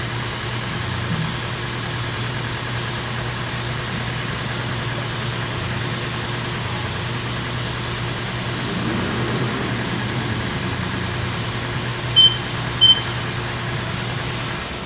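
Steady low mechanical hum, with two short, high electronic beeps a little over half a second apart near the end.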